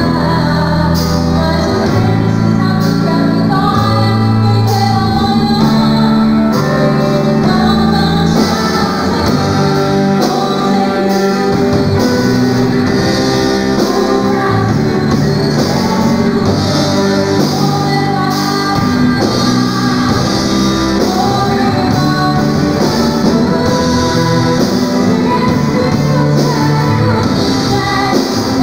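Live worship band playing a gospel song: a woman sings over electric guitar, bass, keyboard and drum kit. The drums pick up with more cymbal about eight seconds in.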